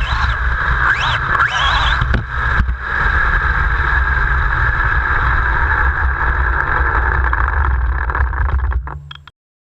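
Onboard sound of a 1/10-scale Kyosho Lazer RC buggy running, its brushless motor whining up and down in pitch over a steady rumble of wheels and air on the camera. Two sharp knocks come around two seconds in, and the sound cuts off suddenly near the end.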